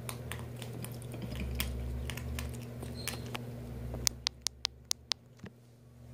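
Ferret crunching dry kibble: a scatter of small crisp clicks, then a quicker run of about six sharper crunches about four seconds in, over a steady low hum.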